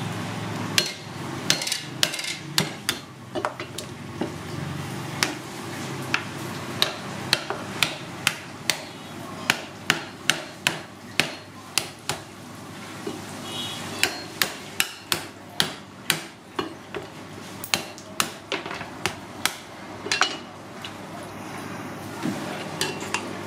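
Cleaver striking mud crab claws on a wooden chopping block to crack the shell: a long, irregular run of sharp knocks, about one or two a second, that stops near the end.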